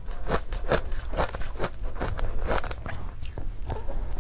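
Chewing of powdery ice coated in matcha powder, a steady run of short soft crunches, about three a second.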